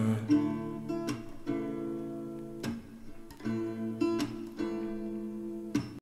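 Background music: an acoustic guitar strumming chords, with no singing, each strum ringing on between strokes.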